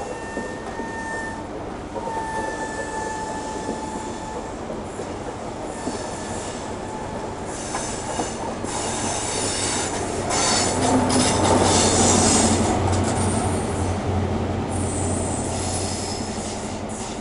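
First Great Western InterCity 125 high-speed train running past over curved track and points: wheel flanges squeal in two long high tones in the first few seconds, then the wheels clatter over the pointwork. About ten seconds in, the Class 43 power car's diesel engine adds a steady low drone, loudest around twelve seconds before easing off.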